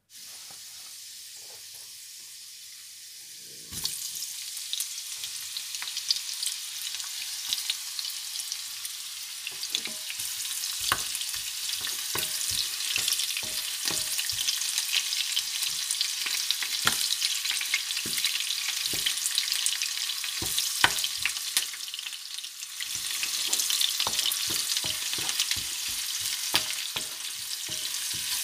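Garlic and onions sizzling in hot oil in a nonstick pan, the sizzle growing louder about four seconds in. From about ten seconds in, a wooden spatula knocks and scrapes against the pan as they are stirred.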